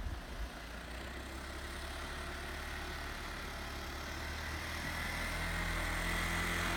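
ATV (four-wheeler) engine running steadily as it drives across the snow, getting gradually louder in the second half as it draws closer.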